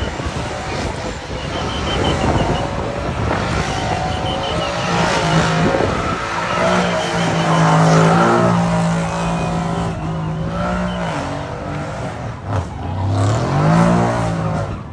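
Sports car engines running loud as the rally cars pass, with a held engine note in the middle and a rising rev shortly before the end.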